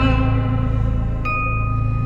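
Slow film-score music: a low sustained drone under held notes, with a single high ringing note struck just after a second in that rings on.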